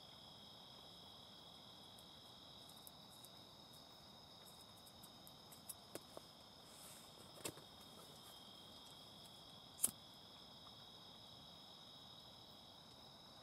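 Faint, steady trilling of crickets in two high, unbroken tones, with a few sharp clicks scattered through and one louder click about ten seconds in.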